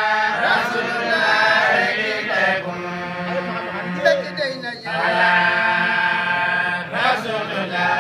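Islamic devotional chant in praise of the Prophet Muhammad, sung in long drawn-out melodic phrases, with fresh phrases starting about five seconds in and again about seven seconds in.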